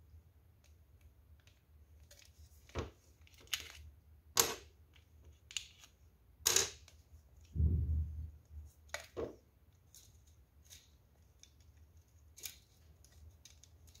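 Hands handling the plastic parts and wiring of a disassembled hair dryer: a string of scattered sharp clicks and small knocks, with one duller, heavier knock about eight seconds in.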